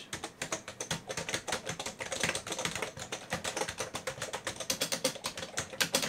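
Fast typing on a vintage full-size AT keyboard with a metal bottom plate: a dense run of sharp key clicks.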